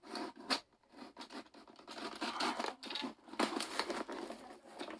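Utility knife cutting through the packing tape on a cardboard shipping box: a series of irregular, scratchy tearing strokes as the blade drags along the tape and cardboard.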